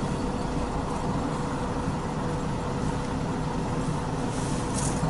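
Steady engine and tyre rumble of a car driving in slow expressway traffic, with a faint steady hum and a slight hiss near the end.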